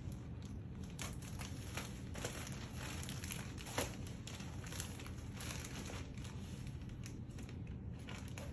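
Plastic poly mailer bag crinkling and crackling in irregular snips and rustles as it is cut open with scissors.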